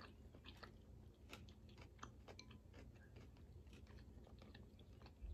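Faint close-up chewing of boiled crawfish, with irregular small clicks and crackles.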